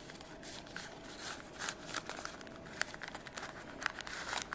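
Folded origami paper rustling and crinkling as unit parts are handled and slotted together into a cube, with irregular small paper clicks and a few sharper snaps.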